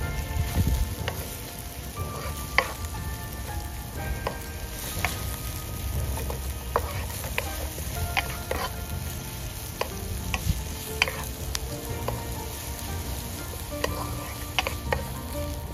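Sliced onion and ginger frying in oil in a nonstick wok, stirred with a wooden spatula that taps and scrapes against the pan at irregular moments over a steady sizzle.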